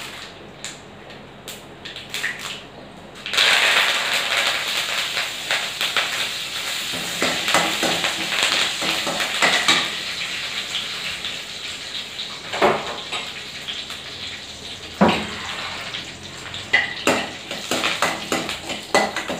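Fresh curry leaves hitting hot oil with mustard seeds, cumin and dried red chillies in a steel kadai: a sudden spluttering sizzle about three seconds in that slowly settles into steady frying. Later a steel ladle clanks and scrapes against the pan several times as the tempering is stirred.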